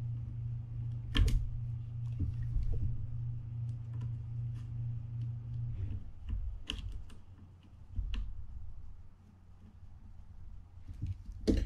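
Small metal clicks and taps of a screwdriver driving the handle set screw into a Penn Senator 114H fishing reel, the loudest a sharp click about a second in. A steady low hum runs underneath and stops about six seconds in.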